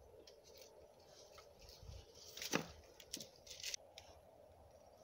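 Faint rustling and handling noises as hands work over a wet dog's fur, with one short, sharp, louder sound about halfway through and a few scratchy rustles just after.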